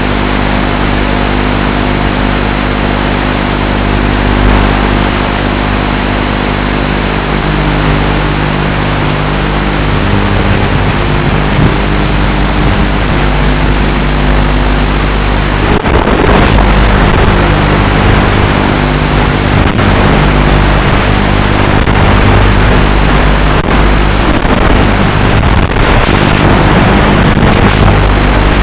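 FPV quadcopter's electric motors and propellers running steadily with wind noise, with several steady pitches and a thin high tone. About sixteen seconds in there is a brief burst of noise, and the sound stays slightly louder after it.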